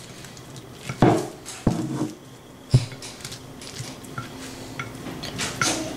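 A chapati rolling pin rolling butter flat between sheets of plastic wrap, with three sharp knocks against the board, the loudest about a second in and near the three-second mark, and smaller ticks after.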